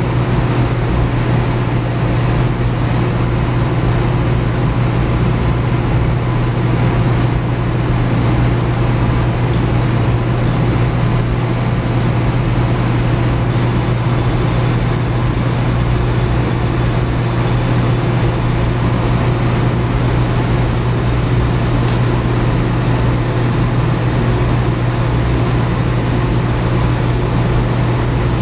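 Steady, loud hum of running machinery: a strong low drone with a faint high whine over an even rush of noise, unchanging in level.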